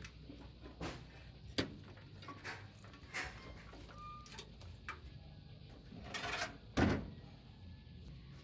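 Scattered knocks and clicks of hard objects being handled, with a short rattle about six seconds in and the loudest knock just before seven seconds.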